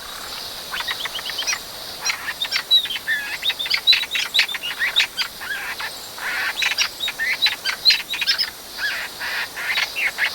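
Ashy-headed laughingthrush calls: a dense, rapid jumble of short squeaky chattering notes and quick sweeps, overlapping and continuing throughout.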